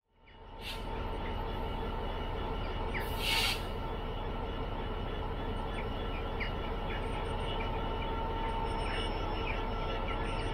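A diesel freight locomotive idles with a train of wagons: a steady low rumble and hum that fades in at the start. There is a short hiss about three seconds in, and small bird chirps above it.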